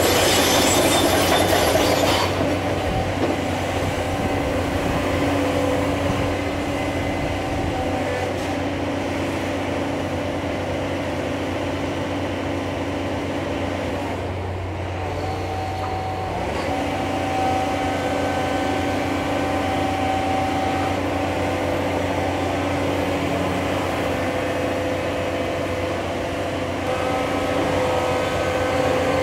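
Cat 336 Next Generation hydraulic excavator's diesel engine running steadily with a hydraulic whine while the machine travels on its steel tracks, the track links clanking and squealing. The sound is brighter and harsher for the first couple of seconds.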